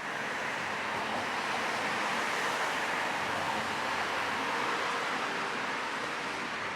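Steady rushing noise with no clear tone or rhythm.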